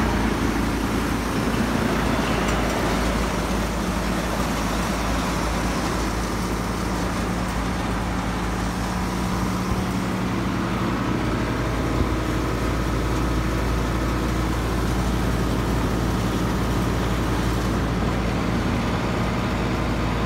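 Kubota MU5501 tractor's four-cylinder diesel running steadily under load, driving a wheat thresher through its PTO, with the thresher's drum and fan whirring as wheat is fed in.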